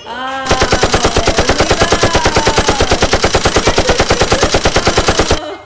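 Toy gun's electronic rapid-fire machine-gun sound effect: fast, even shots at about ten a second, with a gliding pitched tone over them. It stops abruptly after about five seconds.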